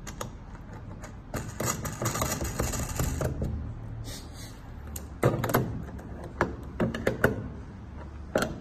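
Rustling and scraping for about two seconds, then several small sharp clicks and taps as metal lamp fittings are handled and fitted onto the threaded tube of a glass wall-lamp base.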